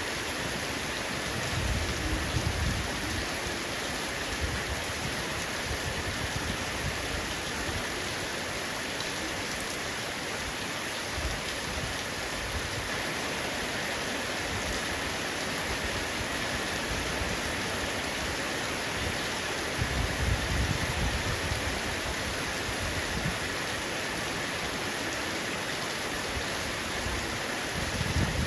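Heavy rain falling steadily on a roof, an even dense hiss of drops. Two brief low rumbles rise under it, about two seconds in and about two-thirds of the way through.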